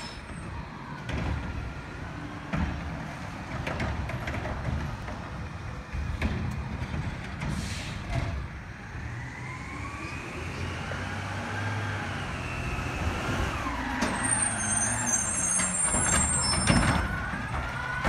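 Heil front-loading refuse truck running as it moves along the street: a steady engine rumble with a whine that rises and then falls through the middle, a high air-brake hiss about three quarters of the way through, and a few sharp knocks near the end.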